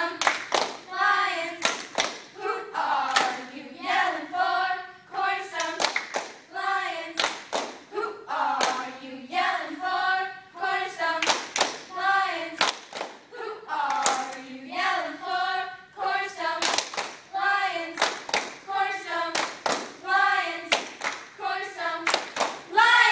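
A cheerleading squad of girls chanting a cheer together in a sing-song unison, punctuated by frequent sharp hand claps.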